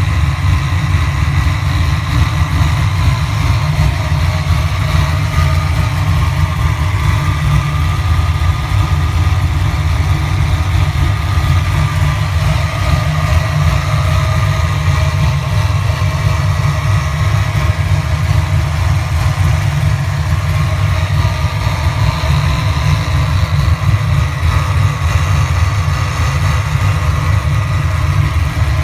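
Supercharged 331 cubic-inch stroker small-block Ford V8 idling steadily, with noise from its Vortech V3 Si centrifugal supercharger over the even idle. The owner guesses this blower noise is normal when not under load, on a unit with only about 500 miles on it.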